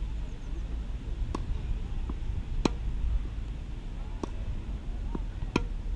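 Tennis ball being struck by a racket and bouncing on the court: sharp pops, the three loudest about a second and a half in, near the middle and near the end, with fainter ones between. A steady low rumble runs underneath.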